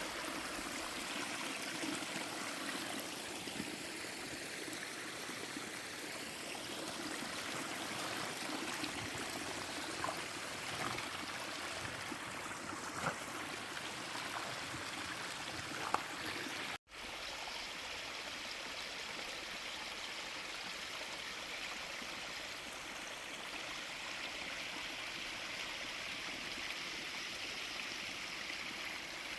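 Stream water running steadily, a continuous rush with a few faint clicks. The sound drops out for an instant about two-thirds of the way through.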